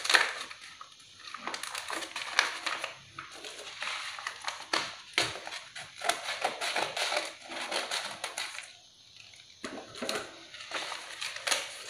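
Plastic wrapper of an instant noodle packet crinkling and tearing as it is opened by hand, in irregular crackles, with scissors cutting into it partway through.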